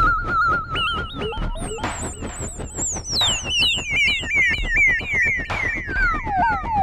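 Electronic experimental music: a warbling synthesizer tone that jumps up in pitch about a second in, then slides back down step by step, over a fast, even run of clicks with a few bursts of hiss.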